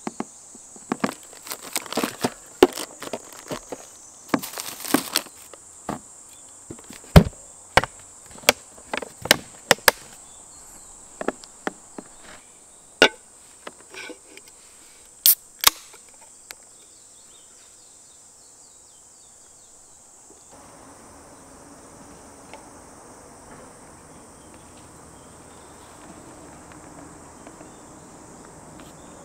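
Insects chirring in a steady high-pitched drone, with a run of sharp, irregular knocks and taps through the first half or so. The background changes abruptly about two-thirds of the way in.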